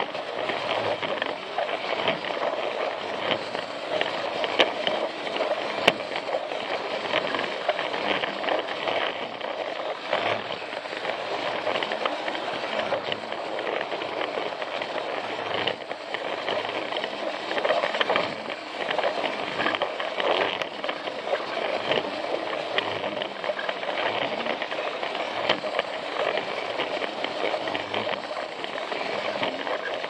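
Plarail battery-powered toy train running along plastic track: a steady whirr of its small motor and gears with frequent small clicks and rattles.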